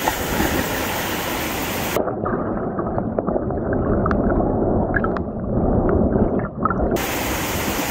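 Rushing water of a waterfall pouring into a pool, a steady roar. From about two seconds in, for about five seconds, it turns muffled and dull, with scattered bubbling pops, then comes back clear.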